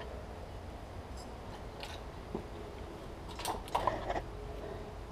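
Faint handling noises of salvaged TV circuit boards and wiring being moved on a bench: a few light clicks and rustles, the clearest about three and a half seconds in, over a low steady background hum.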